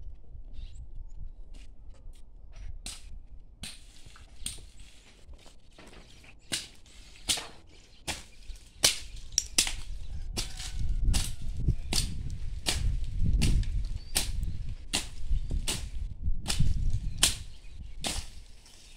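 Hand-held blade slashing through grass and weeds with sharp swishing cuts, a few faint strokes at first, then louder and quicker at about two a second.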